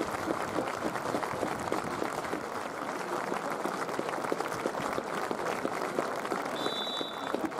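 Football crowd applauding steadily, a minute's applause with the players standing lined up at the centre circle. A referee's whistle blows once, briefly, near the end.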